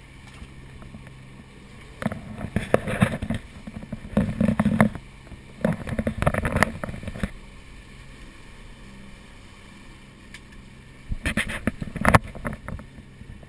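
A steady low hum aboard a catamaran, with four bouts of knocking and rustling as the action camera is handled and swung around the cockpit.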